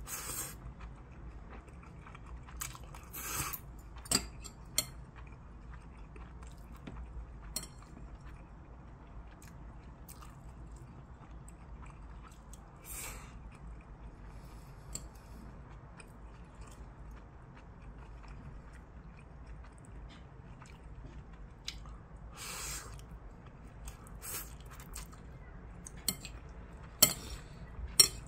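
Close-up eating sounds of stir-fried instant ramen: chewing and a few short slurps of noodles, with sharp clicks of metal chopsticks against a ceramic bowl, the loudest near the end.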